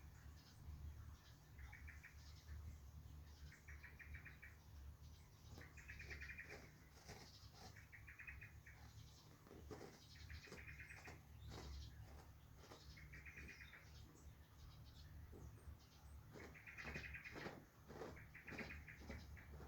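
Faint, short trilled bird-like chirps repeating at an even pace about every two seconds, with scattered rustling and scratchy clicks between them and a low steady hum beneath.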